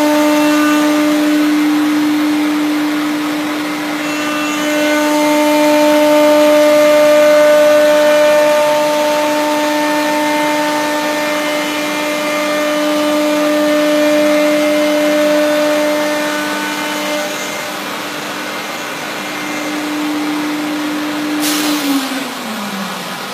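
Biesse Rover B 4.40FT CNC router's spindle running with a steady high whine as the machine head works over the table. Near the end there is a short hiss, and the whine falls in pitch as the spindle winds down.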